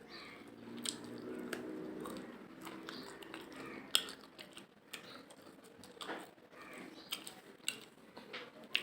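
A person chewing mutton biryani, with wet mouth clicks and smacks scattered throughout. A faint voice sounds in the background for the first few seconds.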